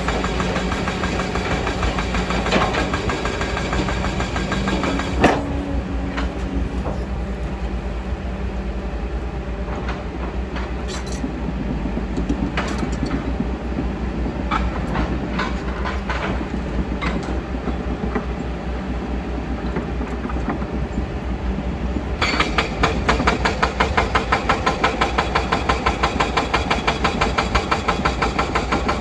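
Kobelco excavator's diesel engine running steadily, with a sharp knock about five seconds in and scattered clicks and knocks of the machine at work. About 22 seconds in it gets louder, with a rapid, even clatter.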